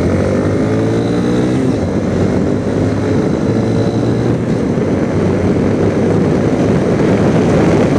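Honda CRF230L's single-cylinder four-stroke engine accelerating under load, heard from inside the rider's helmet. Its note rises for the first couple of seconds, then sinks into a steady, growing rush of wind and road noise as speed builds uphill.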